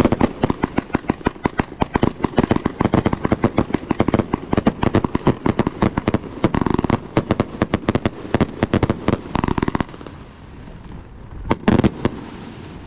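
Hundred Grand 100-shot firework cake firing a rapid string of shots, several bangs a second for about ten seconds. After a short pause, a final few loud bangs come near the end.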